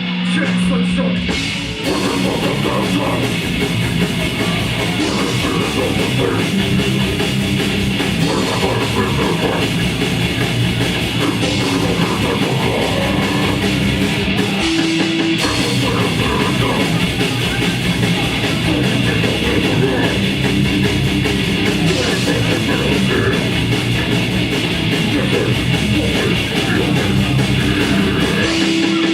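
Live grindcore band playing at full volume: heavily distorted electric guitars and bass over a pounding drum kit. A held low guitar note opens, and the full band crashes in about two seconds in.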